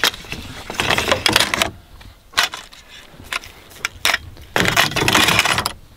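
Aluminium poles clinking and knocking against each other and the box as they are slid into a storage box, with a longer scraping slide near the end.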